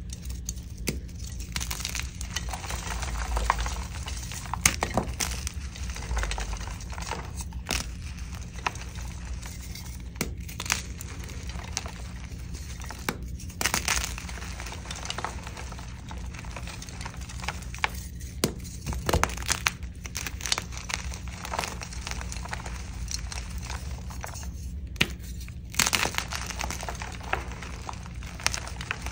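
Blocks of dyed gym chalk crushed by hand: a continuous soft crunching and crumbling, broken by irregular louder cracks as pieces snap apart.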